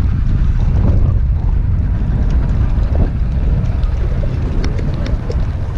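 Wind buffeting the microphone as a steady low rumble, over the sound of boat engines running on the water.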